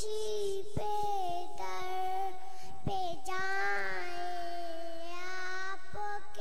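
A young girl singing a naat (Islamic devotional hymn) into a microphone, holding long notes that waver slightly in pitch.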